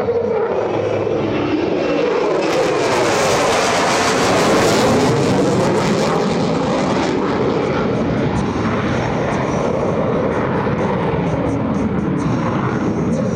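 Single-engine F-35C Lightning II jet fighter making a fast low pass, its F135 turbofan running loud. The sound sharpens and peaks about four to five seconds in as the jet goes by, then continues duller as it moves away.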